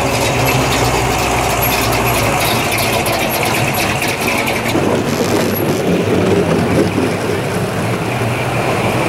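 Engines of classic cars idling as they roll slowly by at parade pace. A low steady engine hum from the passing classic Chevrolet pickup fades about two and a half seconds in, and the next cars follow.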